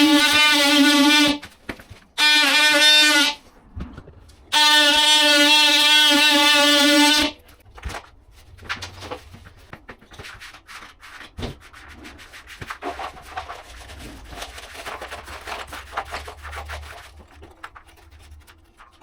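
A power tool runs in three stretches of a few seconds each, a loud steady buzz that starts and stops abruptly, while cutting out the damaged wall section. After that come quieter scraping, tapping and handling sounds as the old material is worked free.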